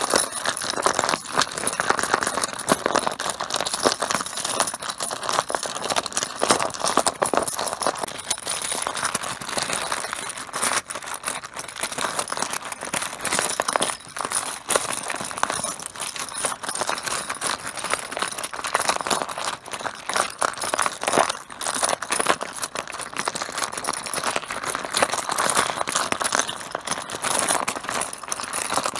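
Mahjong tiles clattering against each other in a dense, continuous stream of clicks.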